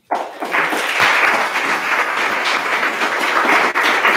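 Audience applauding, breaking out all at once and going on steadily.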